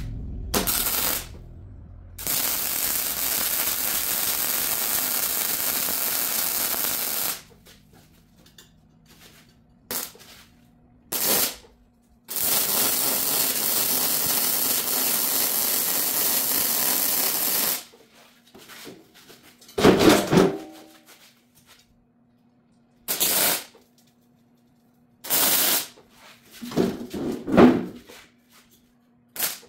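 MIG welder laying weld beads on steel plate with the heat set high: two long runs of about five seconds each of steady arc hiss, with short bursts of welding between them. The beads are run in short sections rather than all the way around so the steel does not warp. A couple of louder clunks come near the end.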